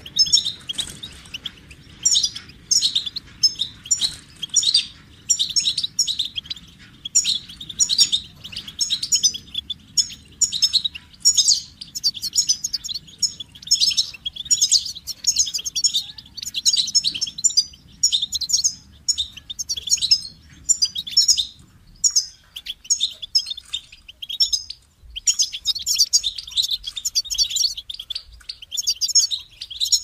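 European goldfinch singing: fast twittering song of quick chirps and trills, phrase after phrase with short gaps between them.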